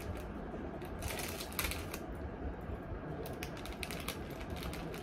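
A small clear plastic bag crinkling and crackling in irregular bursts as earrings are put into it by hand.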